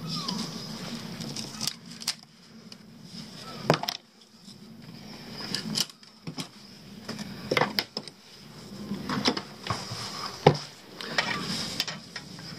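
Chisel scraping and prying at rotten plywood under fiberglass, with irregular sharp knocks and scrapes of steel on wood.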